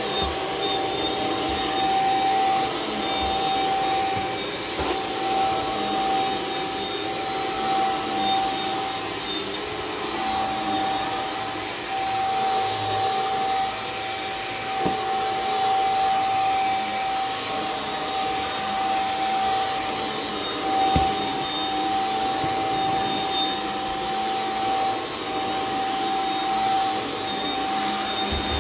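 Cordless stick vacuum running on carpet: a steady motor whine over the rush of air through the powered floor head, with a couple of short clicks about halfway and two-thirds of the way through.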